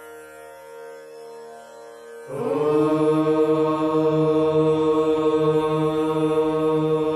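A soft, steady instrumental drone, then about two seconds in a group of voices starts chanting one long syllable in unison, held at a single steady pitch and much louder than the drone.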